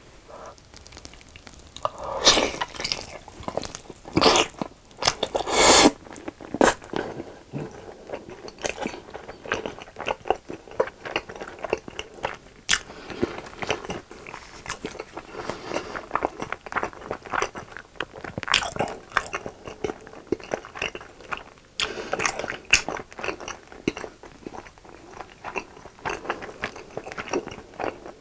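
A person biting into and chewing sauce-glazed grilled chicken, close to the microphone. Several loud bites come in the first six seconds, then continual chewing with small wet clicks.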